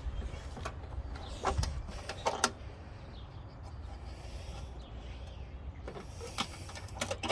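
A heavy metal toolbox being opened and handled: a scatter of sharp metallic clicks and clanks. A cluster comes in the first two and a half seconds, the loudest about two and a half seconds in, and a few more come near the end.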